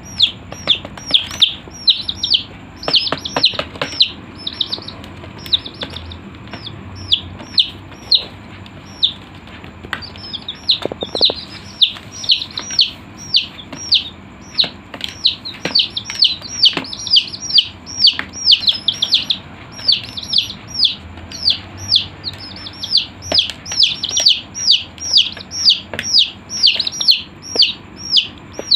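Chicks peeping: many short, high calls, each sliding down in pitch, coming two or three a second and overlapping, thinning out for a few seconds early on and then picking up again.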